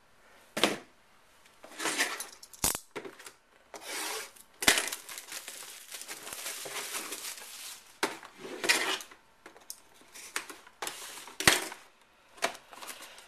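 Cardboard box of trading cards being opened and handled on a table: rustling of cardboard and wrapping, broken by several sharp knocks and taps.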